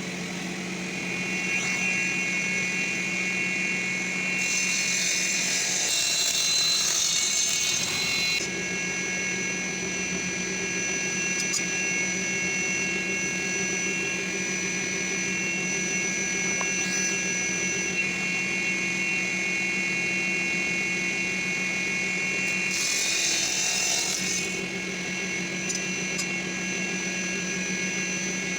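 Table saw motor running steadily. Its blade cuts through wood twice: a four-second cut about four seconds in, and a shorter one about two-thirds of the way through.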